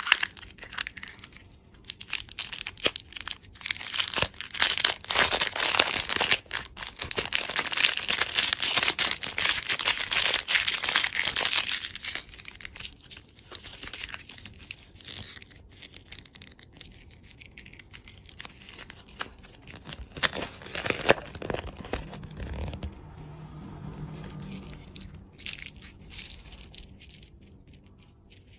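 Plastic wrapper crinkling and tearing in dense crackles, loud for the first dozen seconds, then softer and more scattered.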